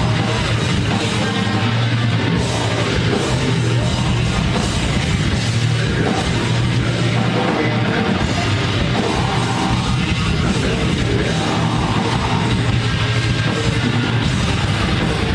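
Heavy metal band playing loud and steady, with distorted electric guitars and a drum kit.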